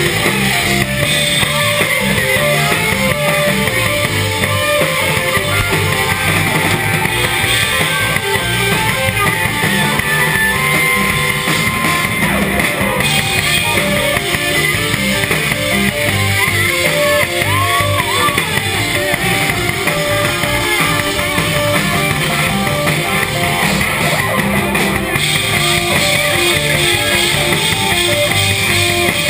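Rock band playing live, with electric guitars, bass and a drum kit driving a steady beat.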